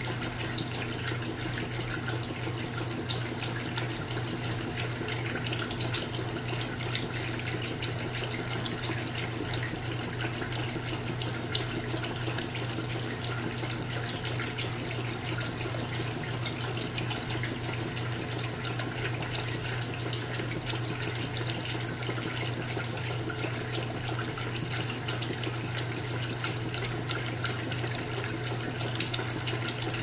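Vintage GE Spacemaker portable top-load washing machine (model WWP2050SAXWH) agitating a load of clothes in water: steady sloshing and churning over a steady low hum.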